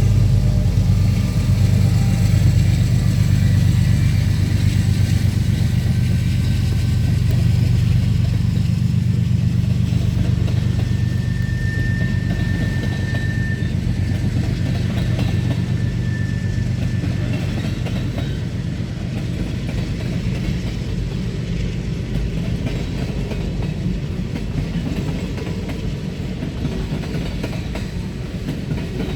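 Diesel locomotives of a freight train passing, their engines' deep drone loud at first and fading after about ten seconds, giving way to the steady rumble of freight cars rolling by on the rails. A brief high-pitched squeal comes in about twelve seconds in.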